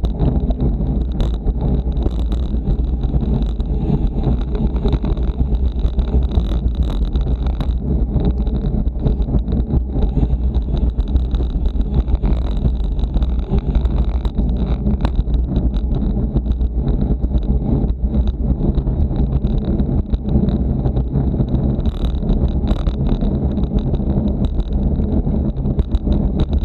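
Steady wind rush and road rumble on the microphone of a camera mounted on a racing bicycle moving at speed, with scattered short clicks and knocks from the bike.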